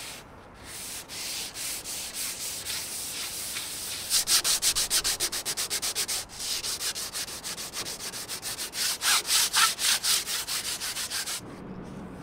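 Sandpaper rubbed by hand over a wooden beam in quick back-and-forth strokes, several a second, lighter at first and harder from about four seconds in, stopping shortly before the end.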